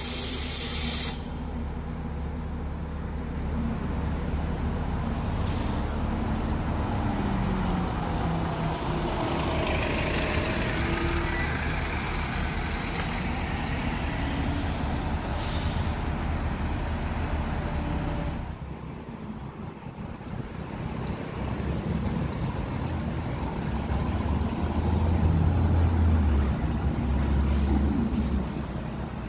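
City transit buses running and pulling away, with short air-brake hisses right at the start and again about halfway through. A rising whine comes in the middle as a bus accelerates, and a louder low engine rumble comes near the end.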